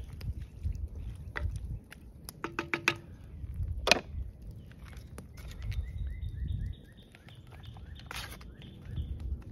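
Wooden spoon stirring chili in a cast iron Dutch oven, with several clicks and one sharp knock about four seconds in. A bird chirps a run of short descending notes in the second half.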